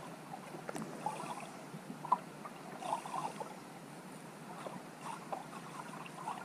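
Underwater ambience picked up by a submerged camera: a steady crackling water noise with scattered small clicks and bubbly gurgles, one sharper click about two seconds in.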